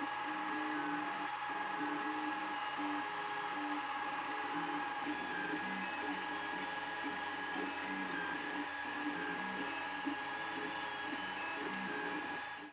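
FFF 3D printer printing: its stepper motors hum in short tones that keep shifting in pitch as the print head moves, over a steady high whine and mechanical noise. It cuts off suddenly at the end.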